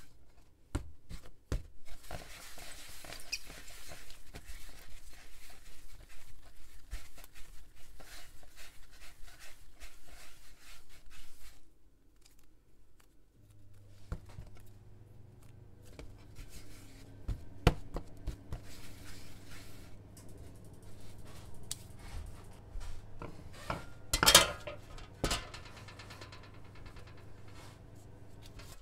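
Hands rolling a small ball of bran bread dough on a wooden board, a dry rubbing under the palm for about ten seconds, with light knocks of hands on the board. Later a low steady hum comes in, and about 24 s in a metal baking tray clatters loudly.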